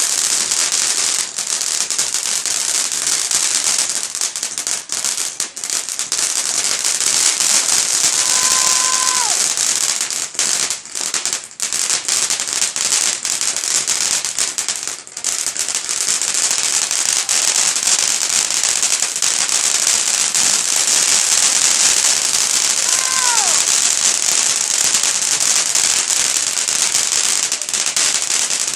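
Fireworks crackling densely and without a break, a rapid stream of many small pops, with a few brief whistles that fall in pitch and a couple of short dips in the crackle.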